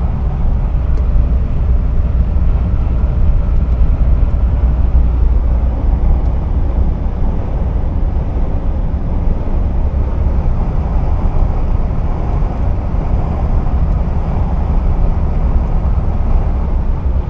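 Mercedes-Benz truck driving at a steady speed, heard inside the cab: a continuous low drone of engine and tyres on the road.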